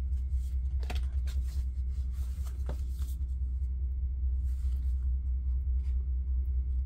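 Light taps and rustles of card-stock journal tags being handled and turned, mostly in the first half, over a steady low hum.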